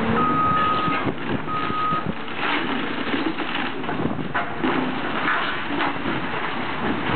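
A backup alarm beeps twice near the start over the steady running of a Caterpillar hydraulic excavator. From a couple of seconds in there is irregular crunching and crackling as the excavator's attachment tears into the building's steel trusses and rubble.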